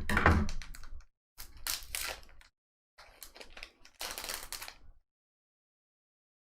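Foil booster pack wrapper crinkling and tearing in four short bursts as a stubborn Pokémon card pack is worked open.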